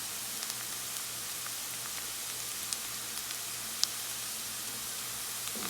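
Onion and garlic sizzling in hot cooking oil in a pan, a steady hiss with a few sharp pops, the garlic being browned to golden.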